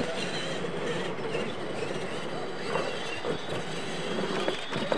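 Several R/C monster trucks' electric motors and geartrains whining as they race on dirt, the high whine wavering up and down in pitch as the drivers work the throttles.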